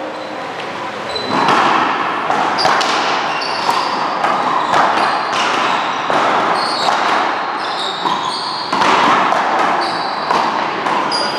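A rally of one-wall handball and paddleball: a rubber ball smacks off hands, a paddle, the wall and the floor many times, echoing in an indoor court, with sneakers squeaking briefly on the floor between hits.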